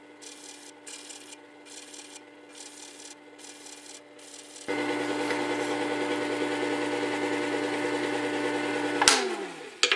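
Work Sharp WS3000 sharpener running, with the steel plane iron's bevel scraping in a steady rhythm against its 120-grit abrasive disc. About halfway through the sound turns louder and steadier, and near the end the motor switches off and winds down, falling in pitch. The abrasive is one the owner thinks is used up and no longer cutting.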